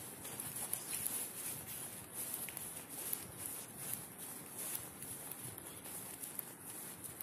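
Footsteps on dry fallen leaves and grass, an irregular patter of soft steps over a steady hiss.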